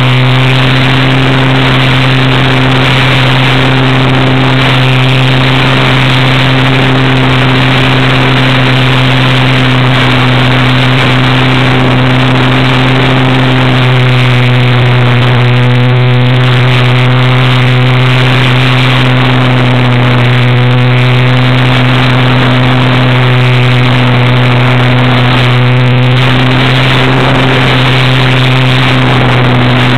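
Steady drone of an RC model plane's electric motor and propeller, heard from a camera mounted on the plane, holding one low pitch with a rushing noise over it.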